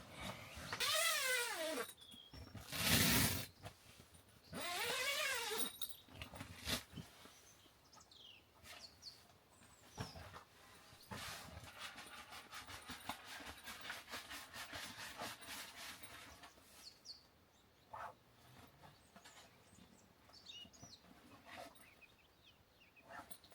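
Two drawn-out animal calls, each wavering and falling in pitch, with a loud short noise between them, then scattered faint bird chirps.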